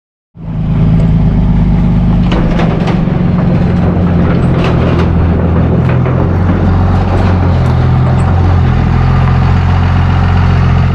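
A vehicle's engine running steadily on the road, a low drone with road noise and scattered light clicks and rattles.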